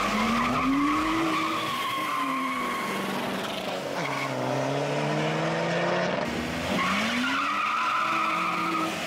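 A BMW E30 with a swapped M54B30 straight-six and a Volkswagen Golf at a drag race, engines revving and accelerating. The engine pitch climbs, then breaks off abruptly and starts again about four and seven seconds in.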